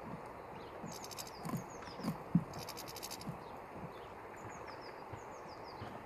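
European goldfinches feeding on a wooden tray of seed: soft knocks of pecking and hopping on the seed, with brief high rattling twitters and short falling chirps.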